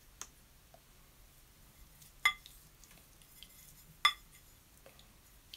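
Paintbrush clinking twice against a ceramic mixing palette as paint is stirred in a well: two sharp, ringing clinks about two seconds apart, with a few faint ticks between.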